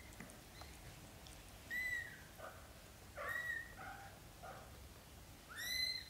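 Young British shorthair kittens mewing: three loud, high-pitched mews, the last near the end, with shorter, softer calls in between.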